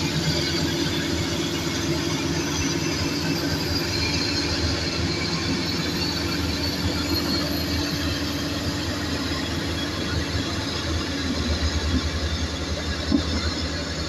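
Crawler earthmoving machines at work: Komatsu D85SS bulldozer and PC200 excavator diesel engines running steadily under the grinding of steel tracks, with a sharp knock near the end.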